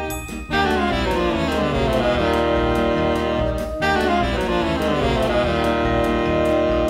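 Jazz-style background music on horns, its melody sliding downward in two long phrases.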